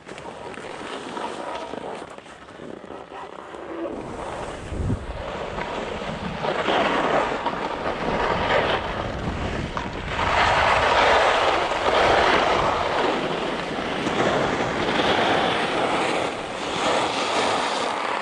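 Skis sliding and scraping over hard-packed snow, the hiss swelling and fading with each turn and growing louder partway through, mixed with wind rushing over the microphone.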